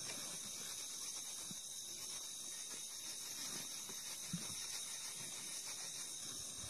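Steady chorus of night insects, crickets chirring in several high bands without a break. Faint scattered low sounds lie under it, with one brief knock about four seconds in.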